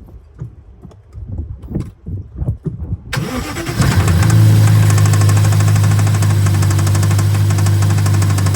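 A few irregular thumps, then about three seconds in a BMW S63 4.4-litre twin-turbo V8 starts and settles into a steady idle with a rhythmic knock: rod knock from a failed connecting-rod bearing.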